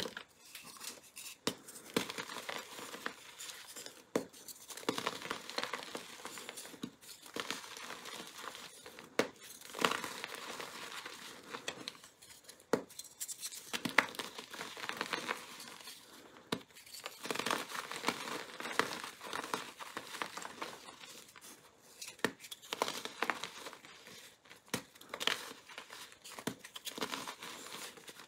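Hands squeezing and crumbling broken chunks of a powder-coated gym chalk block: a continuous dry crunching and crackling, with sharper cracks now and then as pieces give way.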